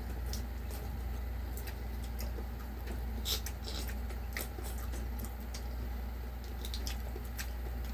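Chewing and biting with small, scattered clicks, over a steady low hum.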